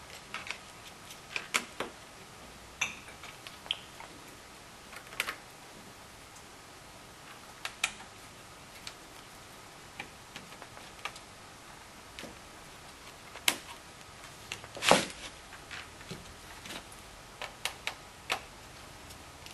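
Irregular clicks, ticks and light knocks of a Toshiba R500 notebook being taken apart by hand, its thin magnesium case parts and components tapping against each other, with one louder clatter about 15 seconds in.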